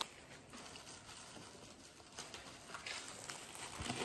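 Faint crinkling of a plastic food wrapper being handled, with a few soft scattered rustles and clicks over a quiet background.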